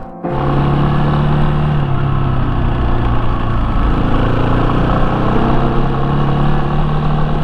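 Yamaha Serow 250's single-cylinder engine running steadily under way. The engine note drops slightly about two seconds in and rises again near the end.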